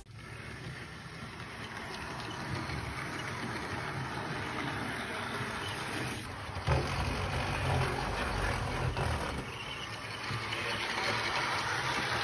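Model diesel locomotive running on the layout track, a steady low rumble that slowly grows louder as it approaches, with one brief knock about two-thirds of the way through.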